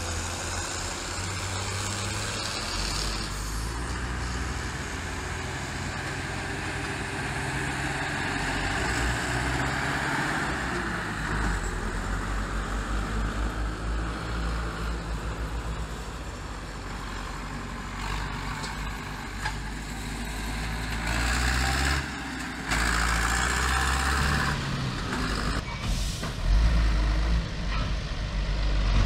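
Farm tractors towing grain trailers passing close by on a paved road: diesel engines running and trailers rumbling over the tarmac, louder near the end as a tractor pulling two trailers draws up.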